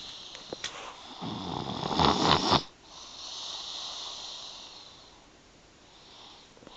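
A sleeper snoring: one loud rasping in-breath builds over about a second and a half and stops sharply, followed by a softer, longer hissing out-breath.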